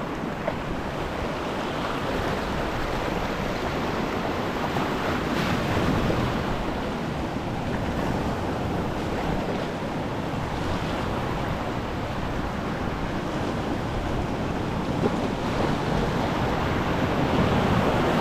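Ocean surf washing and surging against a rock ledge as a steady wash of noise, with some wind on the microphone.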